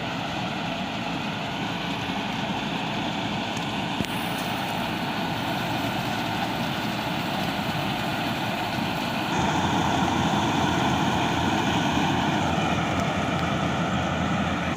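Yanmar AW-70V combine harvester's diesel engine and threshing machinery running steadily under load. Gets louder about nine seconds in, with a single click about four seconds in.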